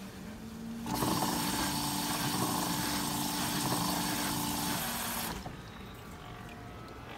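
Single-cup washer's pump spraying a jet of water up into the wash chamber: a rushing spray with a steady motor hum under it, starting about a second in and cutting off sharply after about four seconds.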